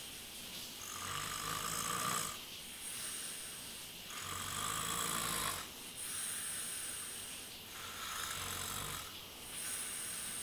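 A man snoring in his sleep: three rasping snores about three and a half seconds apart, with breathy hissing between them.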